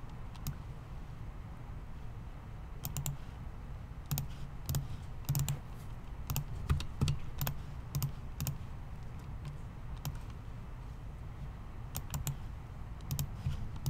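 Computer keyboard and mouse clicks at a desk: single sharp clicks and short clusters, irregularly spaced, while text is selected, copied and pasted between browser tabs.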